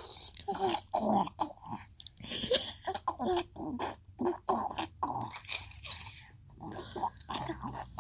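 A 14-month-old baby making funny noises with the voice: short, irregular vocal sounds with pauses between them.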